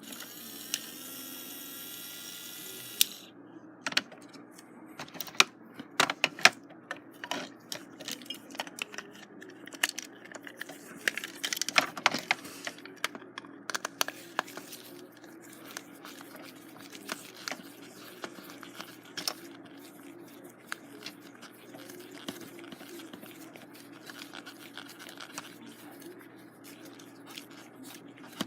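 Small clicks, taps and scrapes of a plastic toy engine being handled while its batteries are fitted. A hiss with a high whistling tone runs for about the first three seconds.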